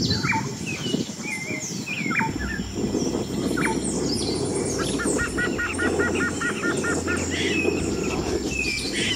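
Wild birds calling and chirping, with many short whistles and a quick run of about a dozen repeated notes midway, over a steady high whine and a low background hiss.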